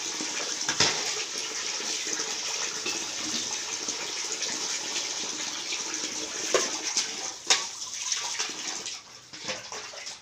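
Steady running water with a few sharp splashes as a small wet dog is washed by hand. The running water stops near the end.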